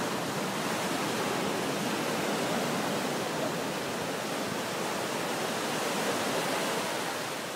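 Ocean surf breaking and washing up the sand in a steady rush of water.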